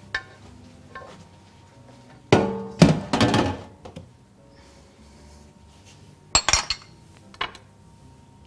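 Dishes and cutlery clinking as the pasta is served: a louder clatter with a short ring at about two and a half seconds in, and a few sharp clicks later on.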